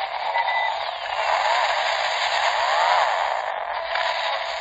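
Car commercial soundtrack heard through a small speaker: a steady rushing noise as the Prius drives off at speed, with two whooshes that rise and fall in pitch, one about a second and a half in and one about three seconds in.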